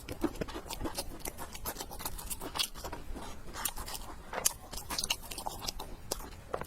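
A person chewing food close to the microphone, with many short, irregular wet clicks and smacks from the mouth.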